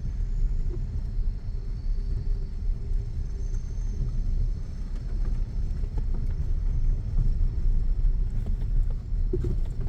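A vehicle driving on a rough off-road track, heard as a steady low rumble.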